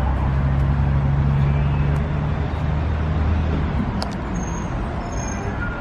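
City road traffic, with a vehicle's engine running low and steady close by for about four seconds before it fades. A single click comes about four seconds in.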